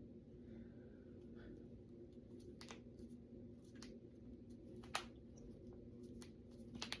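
Finger knuckles cracking: about five small sharp pops spread over the last few seconds, the loudest about five seconds in, over a faint low hum.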